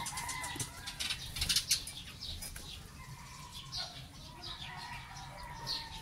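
Leaves and stems rustling as a fledgling bird is pushed into a leafy shrub, loudest in the first two seconds. Short, high chirps of a small bird come every second or so.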